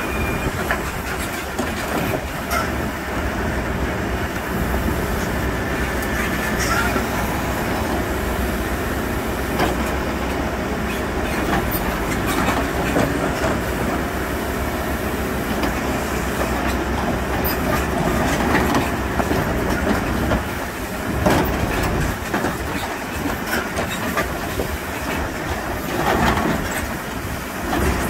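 Diesel engine of a Hidromek 102S backhoe loader running steadily, with occasional clicks and knocks.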